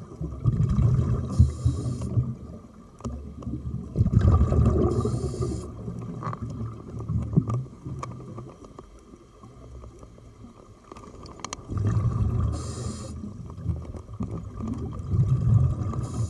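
Scuba diver breathing through a regulator underwater: short hisses of inhaling, each followed by a rumbling burst of exhaled bubbles, repeated several times with a quieter stretch in the middle.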